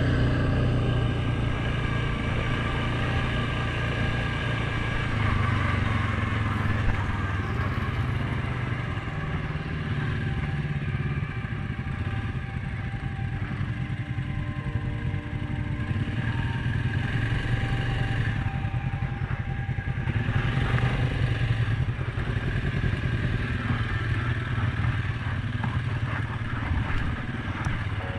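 Suzuki King Quad 750 ATV's single-cylinder four-stroke engine running as it is ridden along a dirt trail. Its note shifts a little with the throttle.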